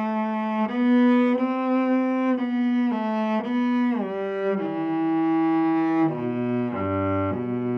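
Solo cello, bowed, playing a slow melody of held notes one after another, with a brief chord near the end.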